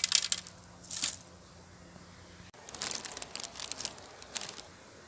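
Dry milled corn grits rustling and crunching in several short bursts as a hand scoops them up and lets them pour back onto the pile.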